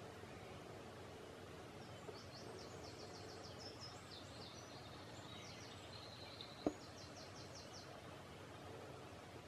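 Faint morning birdsong: quick trilled phrases of rapid high repeated notes over a steady low hiss. A single sharp click sounds about two-thirds of the way through.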